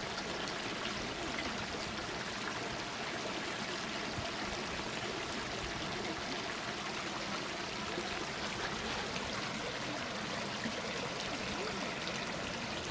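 Shallow stream running steadily, a continuous trickling and gurgling of water over stones.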